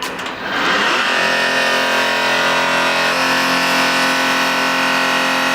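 Diesel-type mobile steam washing machine running steadily: a loud, even mechanical drone with many fixed tones and a hiss. It dips briefly about half a second in, then holds steady.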